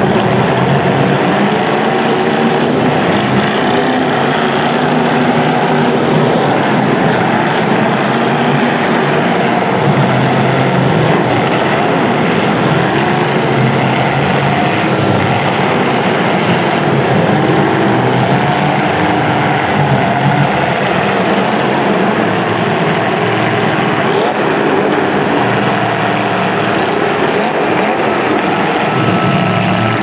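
Engines of several old-iron modified demolition derby cars running and revving at once, a loud continuous mix of wavering engine notes.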